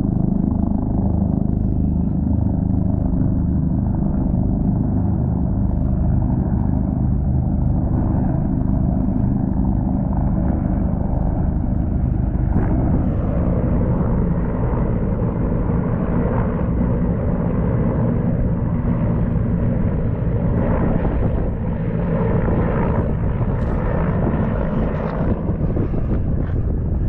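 Three helicopters flying over: a steady, low drone of rotors and turbine engines.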